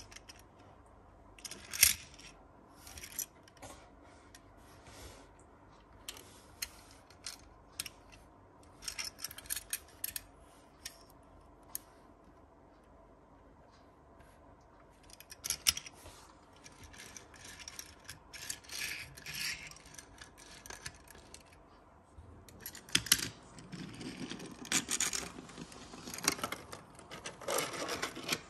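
A small die-cast toy car being handled: scattered clicks, rubs and scrapes of its metal body and plastic wheels against fingers and hard surfaces, busier near the end.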